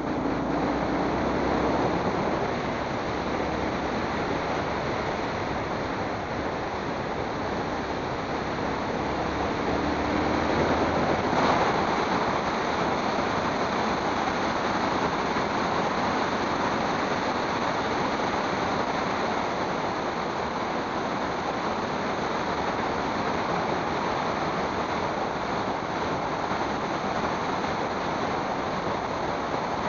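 Steady rush of wind and road noise on the microphone of a camera riding along on a moving vehicle, with one brief knock about eleven seconds in.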